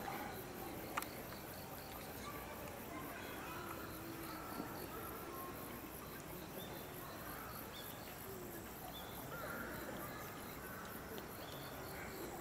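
Crickets chirping in an even, high-pitched pulsing that never stops, with a single sharp click about a second in.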